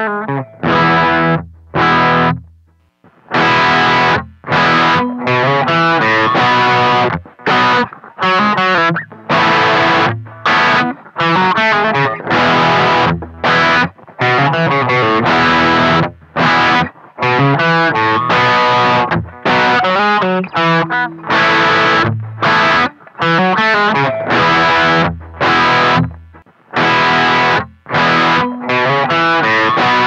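Electric guitar, an Epiphone Les Paul, played through a Donner Dark Horizon distortion pedal. It plays a low-gain solo, then switches to a mid-gain crunch setting about halfway through. The phrases are played in short bursts with brief, abrupt gaps between them.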